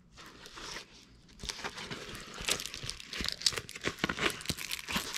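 Clear plastic film on a diamond painting canvas crinkling as the canvas is handled and bent. It is fairly quiet at first, then a dense run of small crackles starts about a second and a half in.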